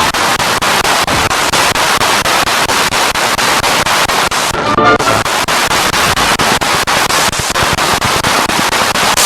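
Spirit box radio sweeping through stations: loud static chopped into a rapid, even stutter several times a second as it steps from channel to channel. About five seconds in, a brief snatch of a broadcast voice or music breaks through.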